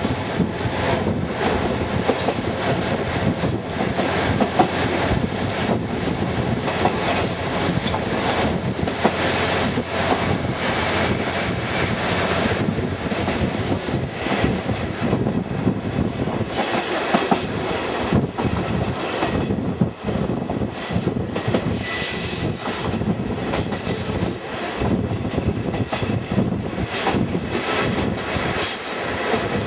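KiHa 48 diesel railcar running along the line, heard from an open window: a steady, loud rush of wheel and rail noise with repeated clicks over the rail joints.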